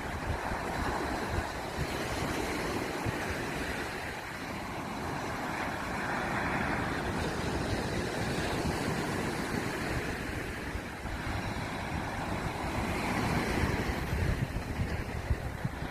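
Surf washing onto a beach, a continuous rushing noise that swells and fades every few seconds, with wind on the microphone.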